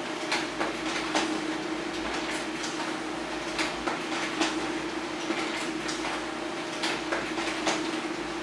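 HP LaserJet Pro M402d laser printer running a double-sided print job: a steady mechanical hum with repeated clicks and snaps as sheets are fed, turned and ejected.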